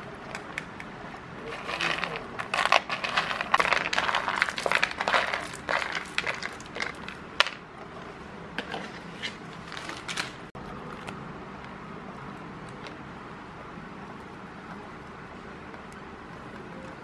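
Roasted peanuts poured from a plastic plate into a plastic bowl, a dense clattering rattle of nuts hitting the bowl for several seconds, thinning to a few stray clicks as the last ones drop.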